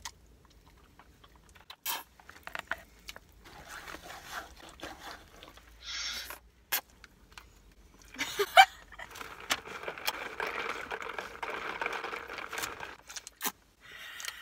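Close-up eating noises: chewing pasta, with a fork clicking and scraping in foil takeout trays, in scattered sharp clicks and crunches, and a louder stretch of noise lasting about four seconds in the second half.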